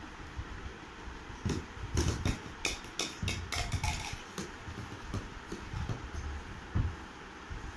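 Irregular knocks and clatters of hard plastic as a toddler handles plastic toy rings and leans and clambers on a plastic hamper, a quick run of clicks in the first half, then scattered soft thumps.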